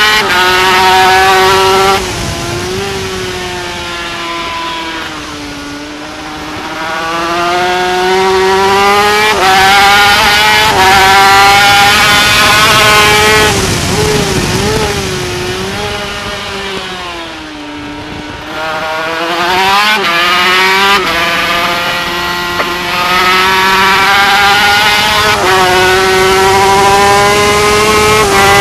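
Yamaha TZ250 two-stroke twin racing engine at race pace, heard from on board. The pitch drops sharply about two seconds in and sinks for a few seconds as the throttle closes. It then climbs steadily, wavers, falls again, and snaps back up and rises, staying high near the end.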